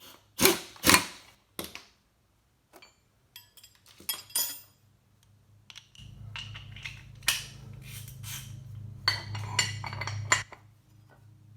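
Two loud metal clanks and a few clinks of tools and hardware, then an impact wrench running for about four seconds, hammering briefly near the end, as it runs the nut up onto the mower's caster fork shaft.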